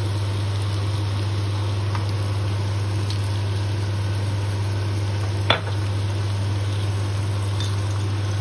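A steady low hum, with the faint sizzle of vegetables frying in a wok beneath it, and one sharp click about five and a half seconds in.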